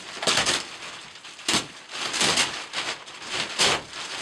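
Plastic packaging bag crinkling and rustling in irregular bursts as it is pulled open, with a sharper burst about a second and a half in.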